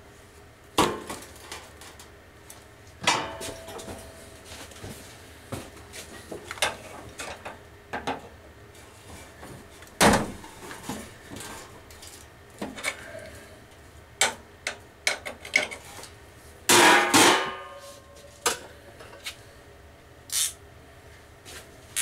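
Irregular metallic clanks, taps and knocks of hand tools on the mounting bolts of an evaporator fan motor, as a bolt that is jammed is worked loose. There is one loud knock about halfway through and a louder, ringing clatter of about a second near the end.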